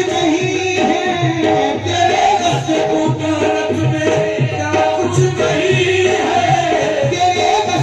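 Live qawwali music: harmonium playing the melody over a steady dholak and tabla beat, with a voice singing over it.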